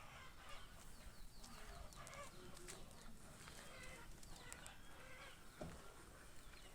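Faint, scattered bird calls and chirps over low outdoor background noise.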